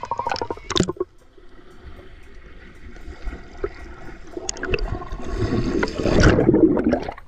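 Water sloshing and gurgling, louder in the last couple of seconds, after a brief rapid clatter at the start.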